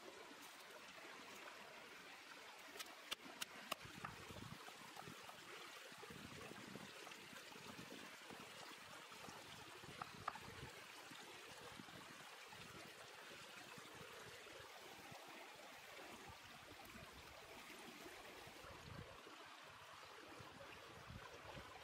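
Faint steady rush of a forest stream running, with a few light clicks about three seconds in and once about ten seconds in.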